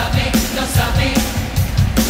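Choir singing a rock song with a live band, over a steady drum-kit beat.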